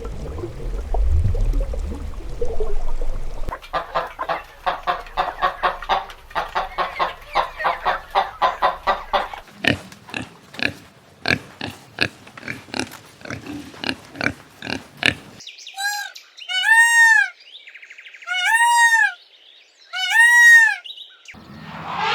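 Pigs grunting in quick runs of short pulses, about three or four a second, followed near the end by four short, high squeals.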